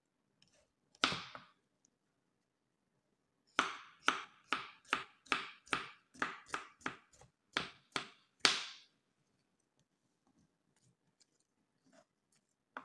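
Knife chopping cucumber on a cutting board: one chop about a second in, then a steady run of about a dozen chops, two to three a second, over about five seconds.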